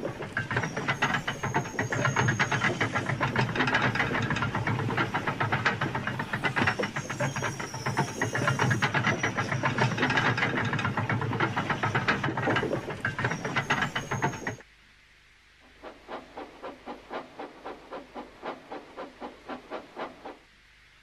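Steam locomotive puffing: fast, steady chuffs for about fifteen seconds that stop abruptly, then slower, quieter chuffs at about two a second.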